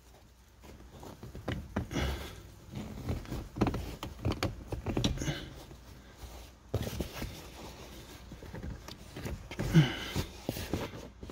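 Car floor carpet being pushed and tucked back under the interior trim by hand: irregular rustling, scraping and light knocks against the trim.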